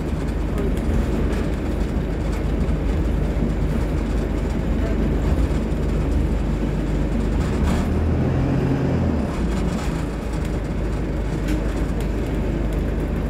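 Alexander Dennis Dart single-deck bus running, its engine and road noise heard from inside the passenger cabin as a steady low rumble. The engine note shifts briefly about eight seconds in.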